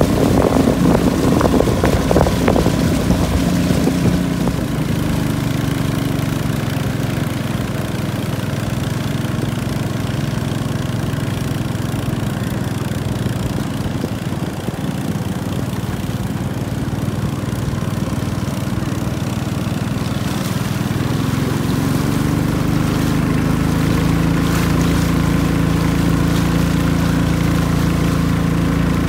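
Long-tail boat engine running steadily under way, with water rushing past the hull. The engine eases a little through the middle, then picks up again, louder and slightly higher, about three quarters of the way through.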